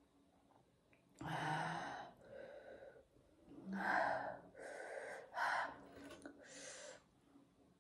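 A woman gasping and panting through an open mouth, about six short breathy exhalations in a row, reacting to the burn of very spicy food.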